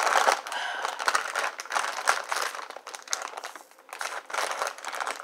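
Lay's potato chip bag crinkling and crackling as hands tug at its sealed top, struggling to tear it open.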